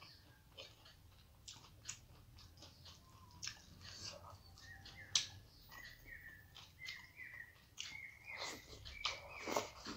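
Close-up eating sounds of rice and curry eaten by hand: chewing, with small wet mouth clicks and smacks. From about halfway on, a bird chirps over and over in the background with short, quick notes.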